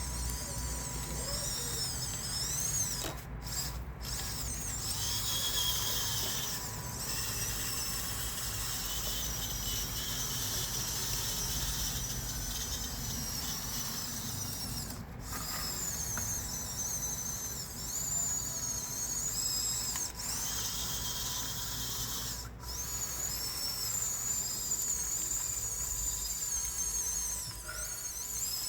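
Small electric drive motors of a Huina 1554 RC bulldozer whining, rising and falling in pitch as it drives, cutting out briefly several times.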